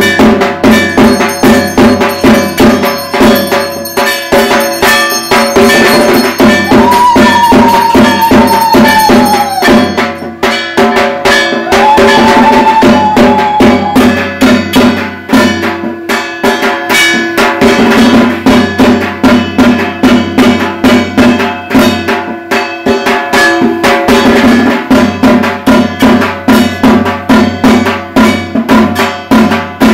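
Puja percussion: drums beaten in a fast, steady rhythm, with a bell or gong clanging and ringing over them. Twice a long high note sounds above the drumming.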